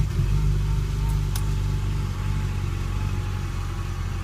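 Peugeot car engine that has just caught after starting, running at a fast idle and settling slightly.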